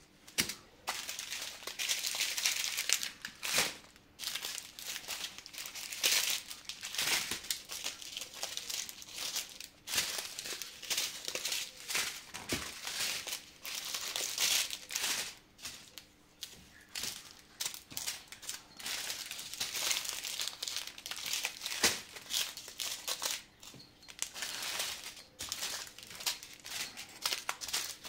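Plastic bags crinkling and rustling as small bags of diamond-painting drills are picked up, shuffled and sorted on a large clear plastic bag, in irregular bursts with short pauses between them.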